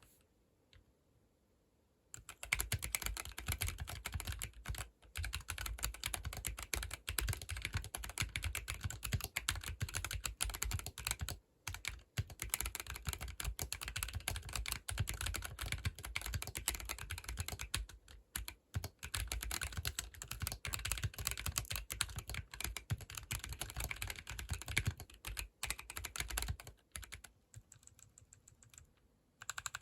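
Fast, continuous typing on a 40% mechanical keyboard with tactile switches, an aluminium case and a carbon-fibre plate. It starts about two seconds in, pauses briefly three times, and stops a few seconds before the end.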